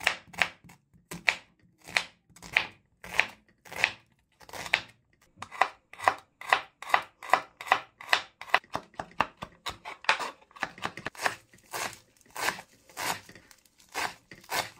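Chef's knife chopping onion, garlic and parsley on a wooden cutting board: a run of sharp knocks of the blade against the board, slower at first and quicker from about five seconds in.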